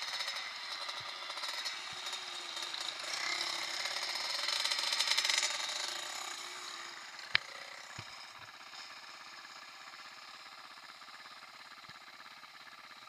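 Motocross bike engines running with a fast, rattling putter, growing louder to a peak about five seconds in and then dying away. A single sharp click about seven seconds in.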